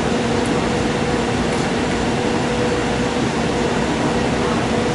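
Steady whir of the powered-up IBM 1401 mainframe and its vacuum-column tape drives, with fans and blowers running and a steady low hum over the rushing noise.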